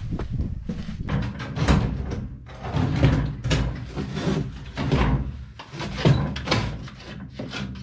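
Footsteps and a door at first, then repeated knocks and clatter at a cast-iron wood stove as its top lid is opened and kindling sticks are put into the firebox.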